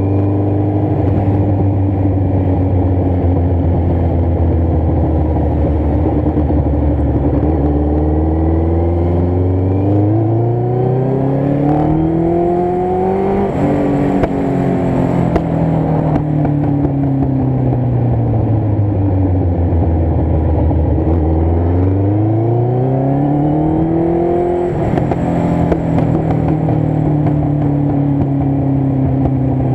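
Motorcycle engine under way: holding a steady speed, then rising in pitch as it accelerates, dropping sharply at an upshift about halfway through, winding down slowly as the bike slows, then accelerating again to a second upshift about five seconds before the end.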